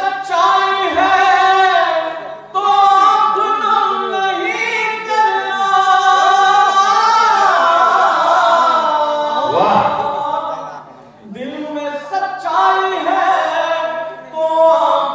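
A man singing a Hindi geet into a microphone, holding long notes with ornamented slides and climbing high, with a short break for breath about eleven seconds in. A steady low hum runs underneath.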